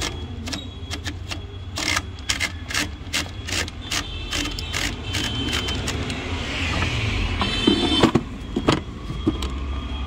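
Old metal-bodied manual typewriter: keys struck one after another in irregular clacks for the first several seconds, then the carriage return lever worked, with a ratcheting rasp and a few heavy clunks around eight seconds in. A steady low rumble runs underneath.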